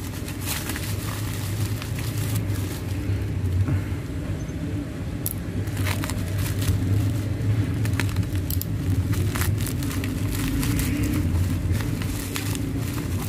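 Plastic bubble wrap crinkling and crackling in irregular bursts as it is pulled and unwrapped by hand, over a steady low background hum.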